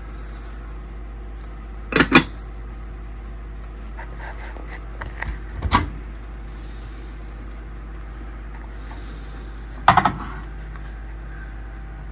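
Knocks and clinks of a microwave-safe casserole dish and its lid being handled: a double knock about 2 s in, a few small clinks around the middle, and another quick series of knocks near the end, over a steady low hum.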